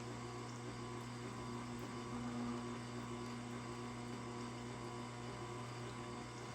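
Tormek water-cooled sharpener running, a steady low motor hum as its grinding wheel turns.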